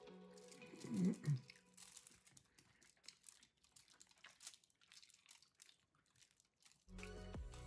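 Aluminium foil crinkling and crispy roast pork being torn apart by hand, in faint scattered crackles. There is a brief louder low sound about a second in. Background music stops early and comes back near the end.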